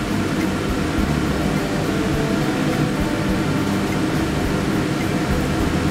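Cha kway dough sticks deep-frying in hot oil, a steady loud sizzle.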